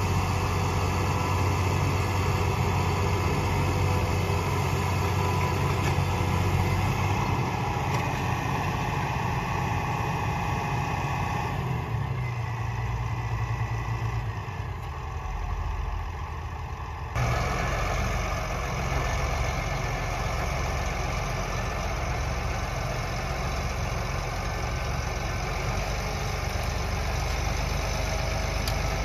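Farm tractor diesel engines running as one tractor pulls a mired tractor and planter out of the mud on a tow line. The engine sound dips for a few seconds, then changes abruptly about seventeen seconds in.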